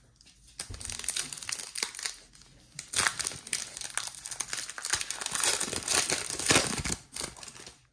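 A trading-card pack's plastic wrapper being torn open and crinkled. The crinkling swells from about three seconds in and stays loudest until near the end.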